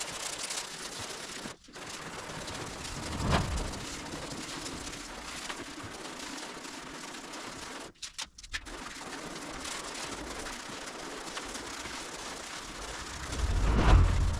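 Abrasive sanding of hard resin primer on car bodywork with a 120-grit disc: a steady rasping hiss, broken twice by brief cuts, with two louder swells about three seconds in and near the end.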